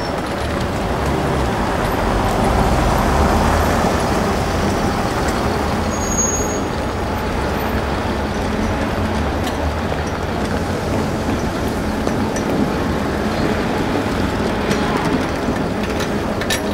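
Street traffic noise: cars driving past on a wet road, a steady wash of engine and tyre sound.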